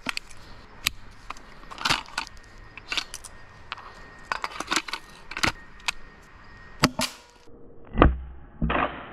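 Clicks and knocks of an airsoft grenade launcher being handled and readied. About eight seconds in, a gas-powered airsoft grenade shell fires from the launcher with a heavy thump, the loudest sound, followed by a short rush of noise.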